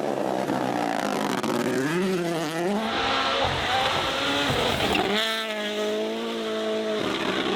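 Ford rally car's engine at speed, revving up and down through the gears around two seconds in, then holding a steady high note.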